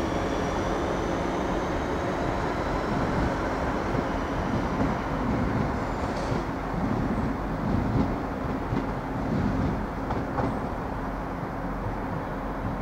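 Class 323 electric multiple unit pulling away and accelerating: a faint rising whine from its traction equipment over the steady rumble of its wheels on the rails. The whine fades out about halfway through, a few clicks of the wheels over the track follow, and the rumble slowly grows quieter as the train draws away.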